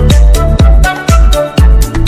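Background electronic dance music with a steady kick-drum beat and synth notes.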